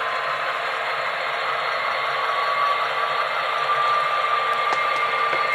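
Model diesel locomotive running with its onboard sound system playing a diesel engine sound through a small speaker, together with the motor and wheels on the track: a steady mechanical hum with a whine that rises slightly in pitch and grows a little louder about halfway through.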